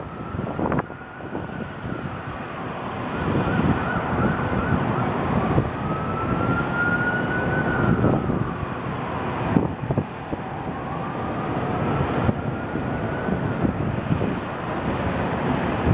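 Emergency-vehicle sirens wailing in slow rising and falling sweeps, with a brief fast warble about three seconds in. Strong wind buffets the microphone throughout.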